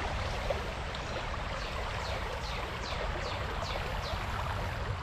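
Creek water running over a shallow rocky riffle, a steady rushing sound. About a second and a half in, a run of short falling chirps sounds over it for a couple of seconds.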